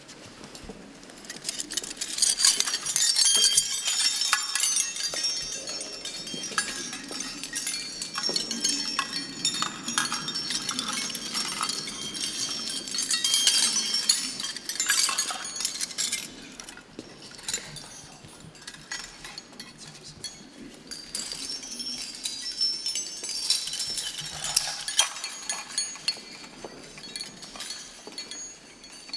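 Ceremonial shooting-club chains of office jingling as they are handled and put on: many small metallic clinks with brief high ringing, loudest through the first half and again a little before the end.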